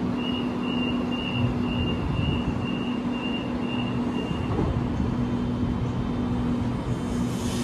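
A train standing or running slowly at a station platform, humming steadily, with a run of about ten short high beeps, around two a second, through the first half. A hiss rises near the end.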